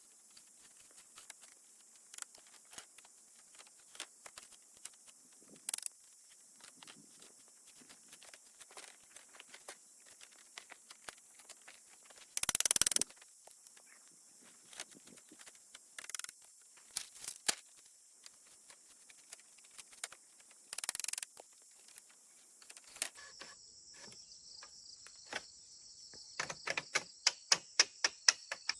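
Insects chirping steadily, with a cricket's high, even trill joining about two-thirds of the way through. Scattered small taps and clicks run throughout, with a short loud rustling noise about halfway through, a shorter one later, and a quick run of taps near the end.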